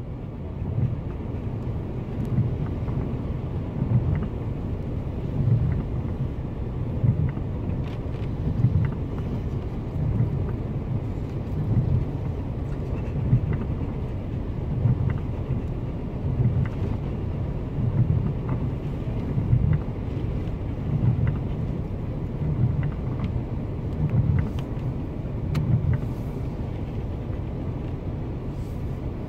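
Storm wind and sea heard from inside a parked car's cabin: a low rumble that swells and eases in gusts every second or two, with scattered small ticks of rain and sea spray hitting the windscreen.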